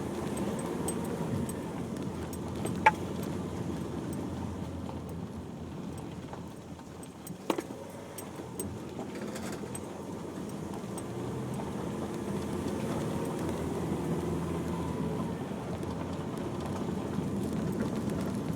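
Inside the cabin of a Nissan X-Trail driving slowly on a rough unsurfaced track: steady engine and tyre rumble with small rattles. Two sharp knocks, one about three seconds in and another about seven and a half seconds in.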